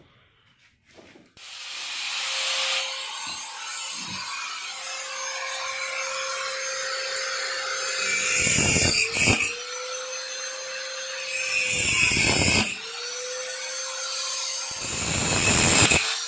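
Small handheld electric power tool, such as a mini grinder or rotary tool, running steadily and cutting through the rusted old wheel spokes. Three times its motor pitch sags under load with a loud grinding rasp.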